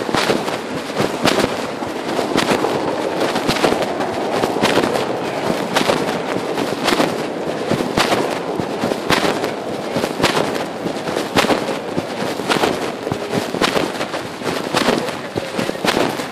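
Pocket fabric rubbing and crackling against a phone's microphone as the wearer walks, with frequent irregular knocks, about two or three a second.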